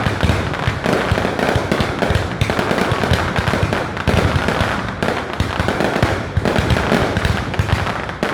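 Aerial fireworks display: many shell bursts and crackles in quick succession, without a break.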